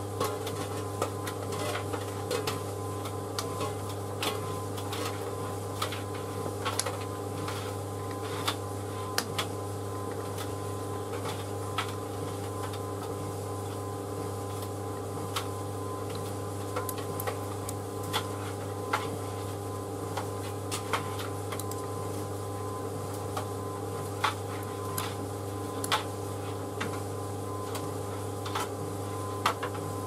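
White Knight C38AW compact reversing tumble dryer running: a steady low motor and drum hum, with light clicks and taps at irregular moments as the laundry tumbles in the drum.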